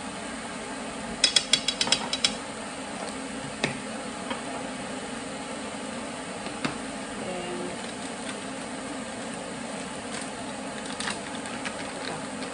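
A metal teaspoon tapped rapidly about seven times, knocking ground spice off into a stainless steel skillet, then a few single clinks later, over a steady hiss of diced onions frying.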